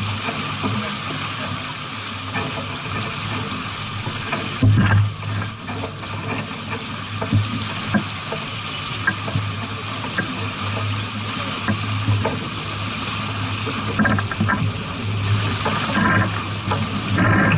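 Water rushing and splashing along a sailboat's hull, a steady hiss with small irregular splashes and a low rumble underneath.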